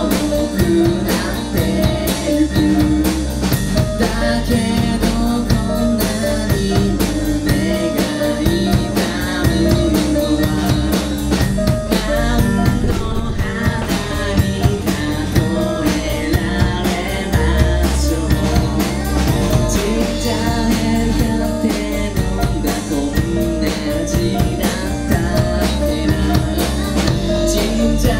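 Live rock band playing: a voice singing over electric guitars, a drum kit and keyboard, with a steady beat.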